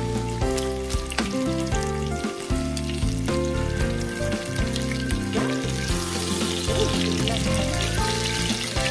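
Ribeye steaks sizzling and crackling in a cast-iron skillet, the sizzle growing livelier about two-thirds of the way through, under background music with steady held notes.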